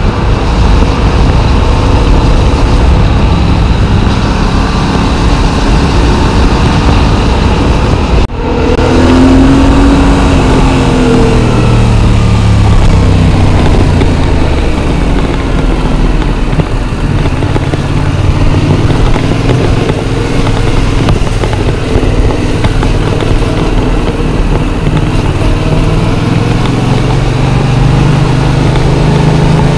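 Yamaha MT-07's 689 cc parallel-twin engine on the move, with heavy wind rush on the microphone. After a brief break about eight seconds in, the engine note falls as the bike slows, then climbs again as it accelerates.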